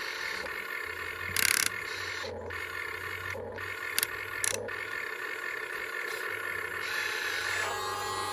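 Remote-control toy excavator's small electric motors and plastic gearboxes whining as it works, stopping and starting. There is a short louder burst of noise about a second and a half in, and a couple of sharp clicks around four seconds in.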